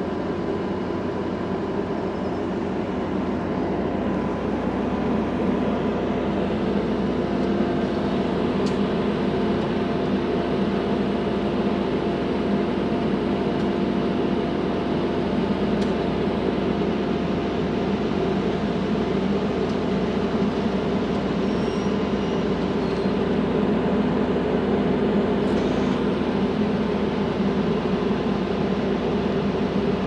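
Combine harvester's diesel engine running steadily, a constant drone with no change in speed.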